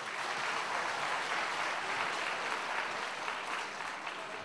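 Audience applauding: steady clapping that thins out near the end.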